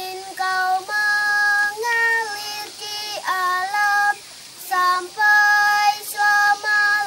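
A young girl singing a slow song in Indonesian, with clear long-held notes and short breaks between phrases.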